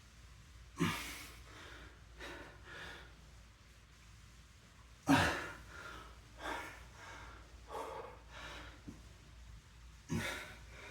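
A man breathing hard from exertion during an exercise set. Three sharp, loud exhalations come about five seconds apart, with softer breaths between them.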